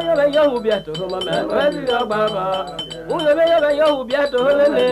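1965 field recording of a West African village band: voices singing, with a struck metal percussion instrument ringing high in a steady beat a few strikes a second.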